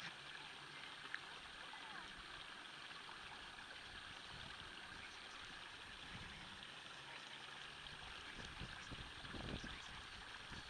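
Faint, steady rushing outdoor background noise, with a few low bumps near the end.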